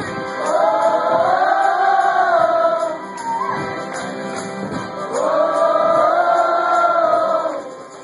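A live folk-rock song: several voices singing together over acoustic guitar, in two long held phrases.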